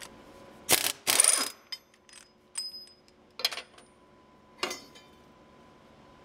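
Impact wrench on a sawing machine's blade arbor nut, hammering in two short bursts about a second in: the nut being run off. A handful of light, sharp metal clinks follow over the next few seconds.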